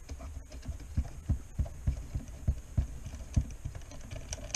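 Soft, uneven knocks and handling sounds, about three a second, from an Allen (hex) key being turned in a Jumper T12 transmitter's plastic case to free the module.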